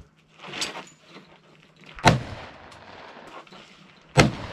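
Two shotgun blasts about two seconds apart, each a sharp crack followed by a trailing echo, fired at thrown clay targets.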